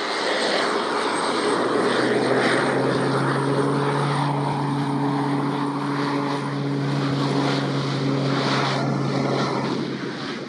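Pilatus PC-12/45's single Pratt & Whitney PT6A turboprop at takeoff power during the takeoff roll: a loud, steady propeller drone with a low hum over broad engine and air noise. It fades near the end as the aircraft moves away.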